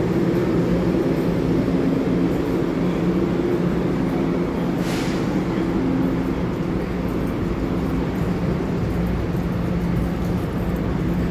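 Amtrak bi-level passenger train rolling slowly past: a steady rumble with a low hum running through it, and a brief hiss about five seconds in.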